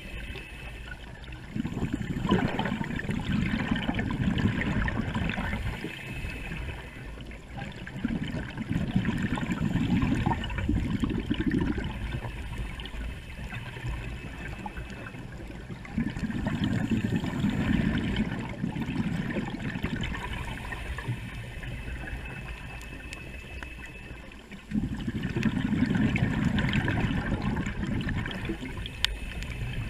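A scuba diver breathing through a regulator underwater: exhaled bubbles rumble out four times, about every eight seconds, with a softer hiss of breathing between them.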